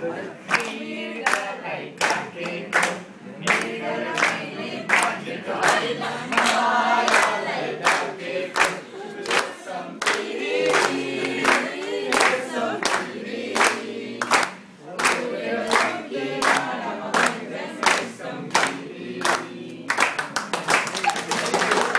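A group of people singing a song together, with hand claps keeping the beat at about two a second. Near the end the clapping turns quicker and denser.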